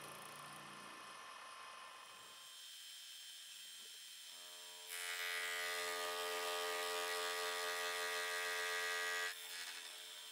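Small milling machine running a carbide-insert dovetail cutter, taking a slow, light pass: a steady buzzing hum that gets louder about halfway through and drops back shortly before the end.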